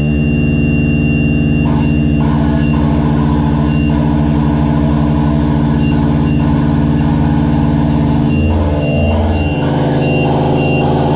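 Harsh noise music: a loud, sustained low electronic drone of many stacked pitches. About eight seconds in its pitches slide down, and again near the end. A faint high tone pulses on and off throughout.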